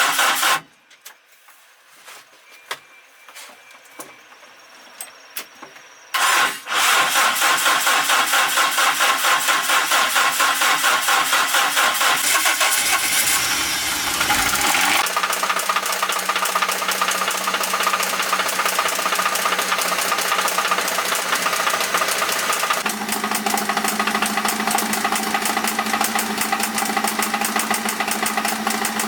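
Old truck's engine stops, leaving a quieter gap of about five seconds with a few clicks, then starts again and runs with a fast, even pulse. About halfway through, its low note sweeps down and settles; near the end it steps up to a higher steady note.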